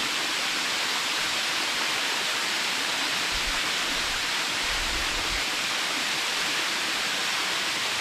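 Waterfall: a steady, even rush of falling water, unchanging in level.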